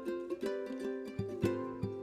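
Background music: a plucked ukulele-style tune with a steady rhythm.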